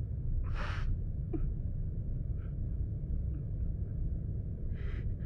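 A steady low rumble with a few short, breathy gasps over it: a sharp breath about half a second in, fainter ones after, and two more near the end.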